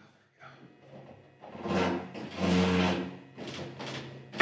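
Truck fuel tank being slid down in its mounting, scraping and grating against its bracket: two longer scrapes in the middle, then a few shorter ones.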